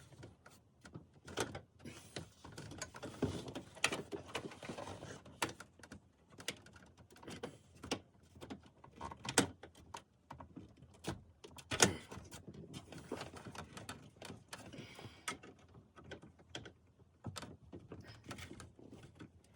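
Plastic dashboard trim and its clips on a 2005 Chevrolet Trailblazer being unclipped and handled: irregular clicks, taps and rustles, with two sharper snaps about nine and twelve seconds in.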